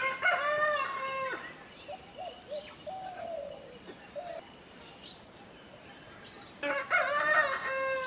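A rooster crowing twice, each crow about a second and a half long with a drawn-out, falling end. The first crow opens the sound and the second comes near the end. Shorter, quieter calls come in between.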